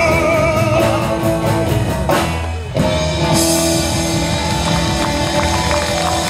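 Live rock-and-roll band with electric guitars and a drum kit playing the closing bars of a song: a short drum fill about two seconds in, then a held final chord with cymbals ringing.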